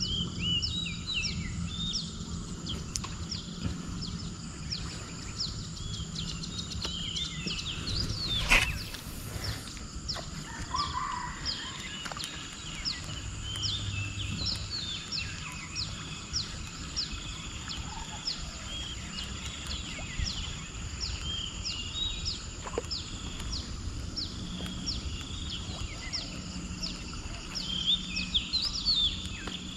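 Wild birds calling in a swamp: a short high call repeating about twice a second, with scattered chirps, over a steady outdoor hiss. A brief loud swish about eight and a half seconds in.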